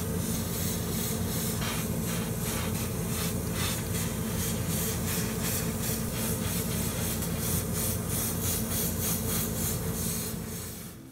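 Airbrush spraying lacquer paint, a loud hiss that surges in short repeated bursts, over a steady low hum; it fades out near the end.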